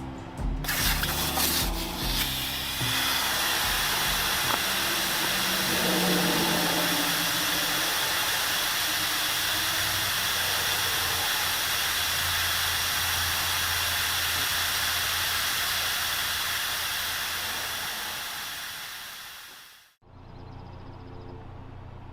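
A steady, even rushing noise that fades out near the end.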